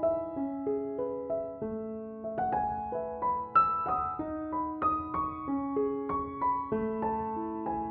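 Background music: a gentle piano melody, notes struck in a steady flowing pattern and left to ring.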